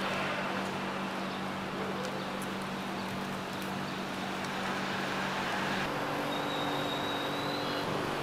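Street ambience: steady background noise under a low motor hum that changes pitch about six seconds in, with a few faint ticks and, near the end, a thin high tone lasting about a second and a half.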